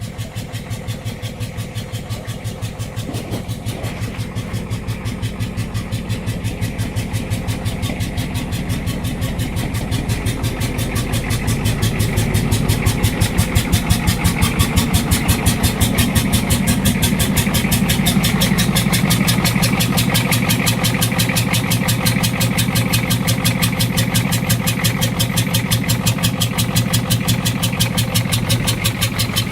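Ford 6.9 L IDI V8 diesel engine idling roughly with an even, pulsing beat that grows somewhat louder over the first dozen seconds, then holds steady. The owner puts the rough idle down to a head gasket fault.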